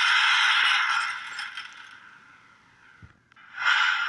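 Rushing, hissing sound effect from the animation's soundtrack. It comes on suddenly and fades over about two seconds, and a second rush starts abruptly about three and a half seconds in.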